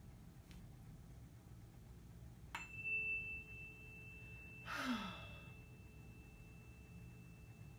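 A tuning fork is struck about two and a half seconds in and rings on with a steady high tone. About five seconds in a person lets out a sigh, its pitch falling.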